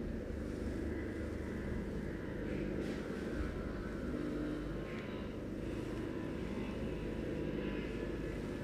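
Steady low hum of a running machine, with no strong changes.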